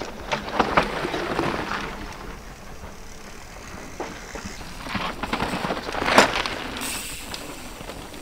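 Mountain bike ridden fast down a dry dirt trail: tyres crunching over loose dirt and pine needles, with clicks and rattles from the bike. It is loudest about a second in and again about six seconds in.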